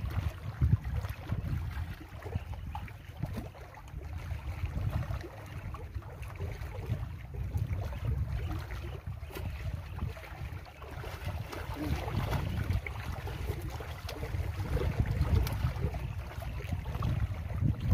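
Wind buffeting the microphone in uneven gusts, with lake water washing against the shore rocks.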